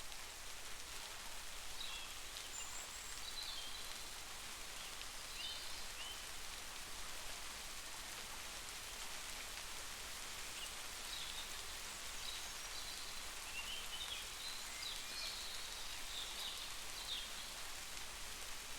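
Steady heavy rain falling, an even hiss of drops. Faint short high chirps sound over it now and then, in two loose clusters.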